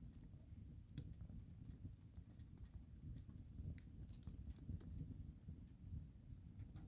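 Wood fire crackling: scattered sharp snaps and pops, a few stronger ones about a second in and again around four seconds, over a low steady rumble.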